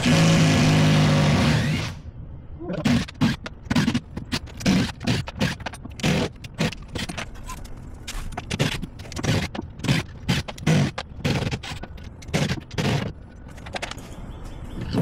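Cordless drill running in a steady whine for about two seconds as it backs a deck screw out of the fiberglass, then stopping suddenly. After it comes a long run of irregular knocks, clicks and scrapes.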